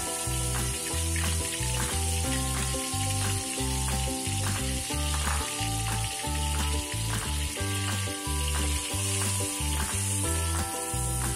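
Blended chilli paste of dried chillies, onion, garlic and dried shrimp sizzling steadily in hot oil in a wok, just after being added, under upbeat background ukulele music with a steady beat.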